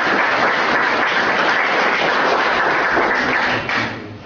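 A roomful of people applauding. The clapping is steady, then dies away near the end.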